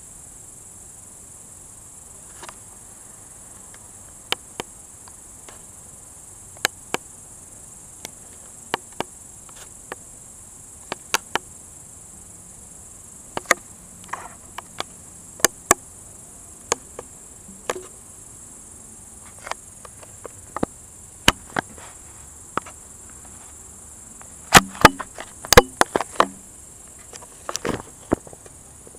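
Crickets chirring steadily in a high, unbroken band, with scattered sharp clicks every second or two and a louder cluster of clicks near the end.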